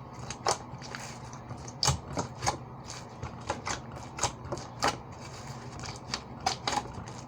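Foam-bead slime being squished and worked by hand, giving irregular sharp popping clicks, over a steady low hum.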